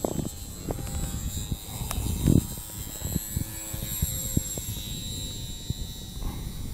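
RC Super Cub model airplane flying overhead, its motor and propeller giving a steady high whine, over an uneven low rumble of wind on the microphone.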